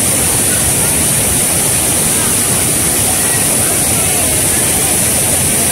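Water rushing steadily across a flooded road crossing, a constant wash of noise.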